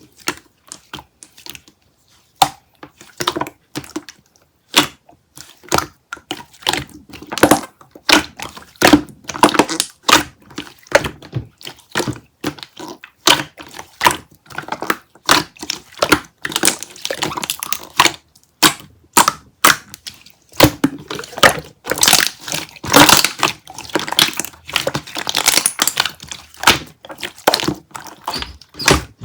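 A close, dense run of irregular clicks, knocks and crackles, like small hard objects being handled or crushed.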